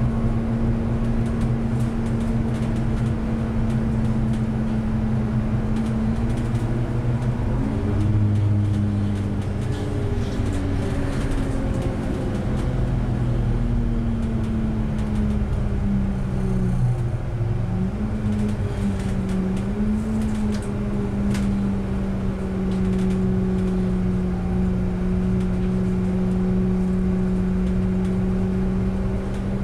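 Bus running along a road, heard from on board: a steady drone over tyre and road noise. Its pitch steps up about a quarter of the way in, then sinks around the middle and stays lower through the second half.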